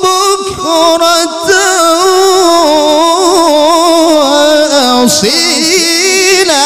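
Male qari's voice in melodic Qur'an recitation (tilawah), amplified through a microphone. He holds long notes with quick wavering ornaments, with a brief break about five seconds in before the line goes on.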